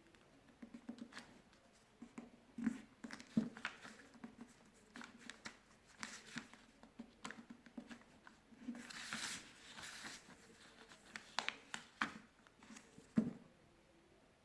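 Sheet of paper being folded and creased by hand: irregular soft taps and rustles, with a longer crisp rustle about nine seconds in.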